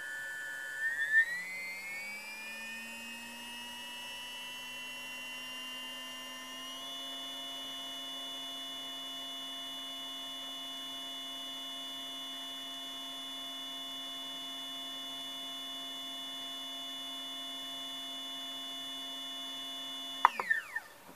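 Surpass Hobby Rocket four-pole 1900 kV brushless boat motor spinning up unloaded on a motor analyzer during a kV test: a whine of several pitches that rises over the first several seconds, then holds steady at about 15,900 rpm, and falls away as the motor stops near the end. A few sharp clicks about a second in and again as it stops.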